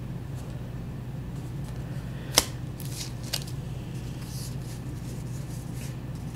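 Faint handling of trading-card packaging, with light rustles and one sharp click about two and a half seconds in, over a steady low room hum.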